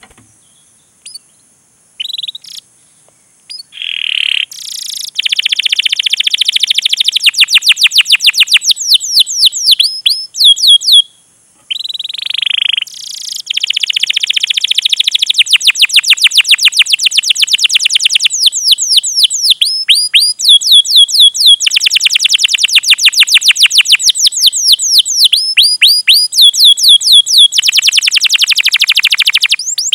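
Domestic canary in full song: long runs of rapid, sharp repeated chirps, each a quick downward sweep, with a short held note between some runs. A few scattered chirps come first, and the song breaks off briefly about eleven seconds in.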